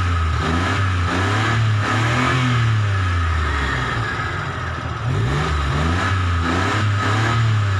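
A small van's three-cylinder engine running with an anti-friction engine lube additive just mixed into its oil. It is revved up and back down twice, about a second in and again near the end.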